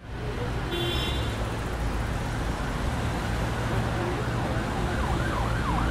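Steady low rumble of road traffic, with an emergency vehicle siren coming in during the second half: its pitch sweeps up and down about three times a second and gets louder near the end.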